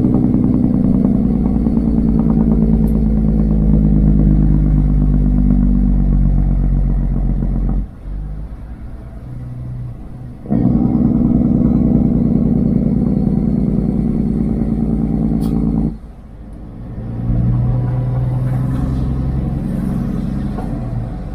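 Semi truck's diesel engine running loud. Its pitch sinks slowly through the first stretch, and the engine sound cuts off abruptly twice and comes back each time.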